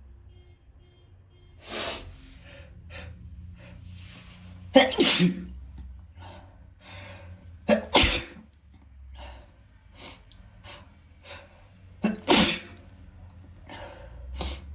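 A man sneezing hard several times. The loudest sneezes come about five, eight and twelve seconds in, with smaller breathy sounds between them. They are spraying sneezes.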